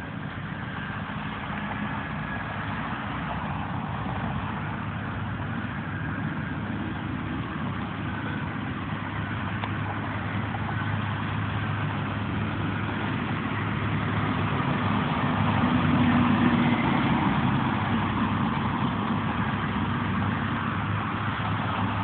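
Road traffic with trucks: engines running with a steady low hum under a wash of road noise. It grows louder to a peak about three quarters of the way through, then eases.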